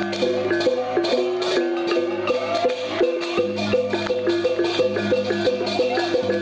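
Balinese gamelan music: metallophones play a quick, stepping melody of struck notes over a steady low tone.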